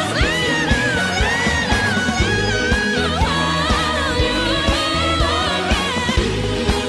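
Woman singing a power ballad with band accompaniment: her voice sweeps up into a very high held note at the start and stays in a high belt over steady bass and drums.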